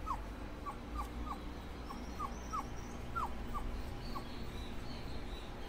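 Doberman puppy whimpering: a run of short high squeaks, each falling in pitch, about three a second, stopping a little after four seconds in, over a low steady hum.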